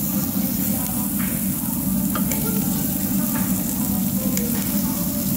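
Pork belly sizzling on a tabletop barbecue grill pan over a steady low hum, with a few light metal clicks from tongs and scissors working the meat.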